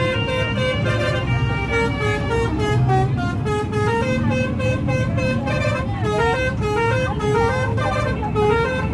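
Bus 'telolet' horn, a multi-tone musical air horn, playing a quick stepping melody of short notes, over the low rumble of the bus.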